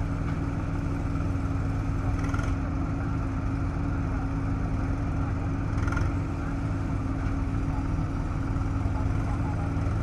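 Heavy machine's diesel engine, from a backhoe loader or tractor, running at a steady speed, with a couple of brief, faint clicks.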